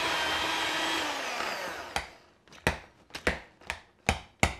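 Electric hand mixer running with a steady whine, its beaters mashing boiled potatoes in a stainless steel pot, then switched off about a second in and winding down. This is followed by about six sharp knocks, roughly two a second, as the metal beaters are tapped against the pot.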